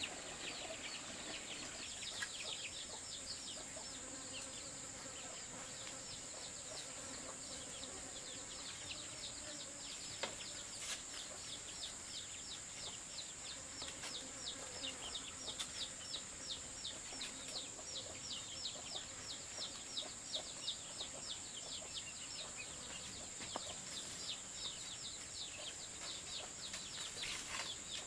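Outdoor ambience: a steady high-pitched insect drone with a bird chirping in short falling notes, two or three a second, while a hen clucks softly in the first half. A sharp knock sounds a couple of times.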